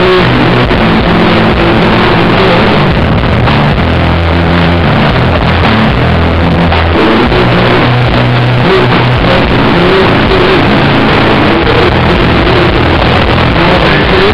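Rock band playing live with electric guitars, bass and drums, picked up loud and close to clipping, so the sound is a dense, saturated wall with held bass notes changing every second or so.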